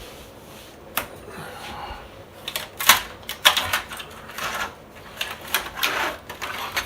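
Irregular clicks, knocks and clattering of hard plastic as a large 3D print is pulled off the printer, with a single sharp click about a second in and a busy run of knocks from a couple of seconds in until near the end.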